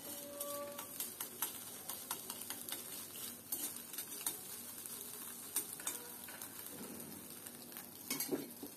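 Scrambled egg sizzling faintly in oil in an iron karahi, with a metal spatula scraping and tapping against the pan. Near the end a few louder clanks as the pan is lifted off the gas burner.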